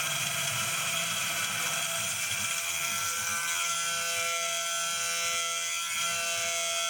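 Homemade Arduino-controlled desktop CNC milling machine running: a steady motor whine with several high tones held throughout.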